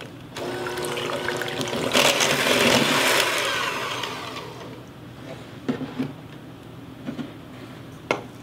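Electric hand mixer whirring as it beats eggs into creamed butter and honey in a stainless steel bowl. It gets louder and harsher a couple of seconds in, then dies away about four seconds in, followed by a few light knocks.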